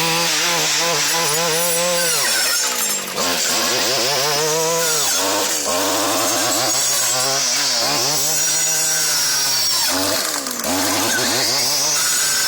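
Stihl FS 74 two-stroke brushcutter running at high revs while its chisel-tooth circular saw blade cuts through a 3-inch tree. The engine pitch sags and recovers several times as the blade bites into the wood.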